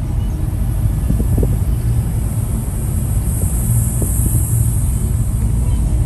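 Car driving on a paved road, heard from inside the cabin: a steady low rumble of engine and tyres.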